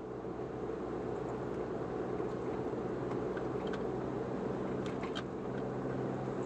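Mazda Scrum Wagon kei van driving at steady speed, heard inside the cabin: a steady engine hum under tyre and road noise, with a few light ticks near the middle.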